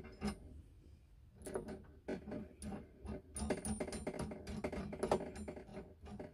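Brass nut being screwed down by hand onto the standpipe fitting of a plastic diesel heater fuel tank: a run of light clicks and scrapes from the metal threads and fittings, coming thicker about three seconds in.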